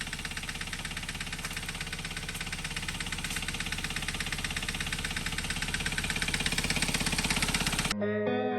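2012 Hyundai Veloster's 1.6 turbo engine running with a fast, even knocking that grows louder. It cuts off suddenly near the end, where guitar music begins.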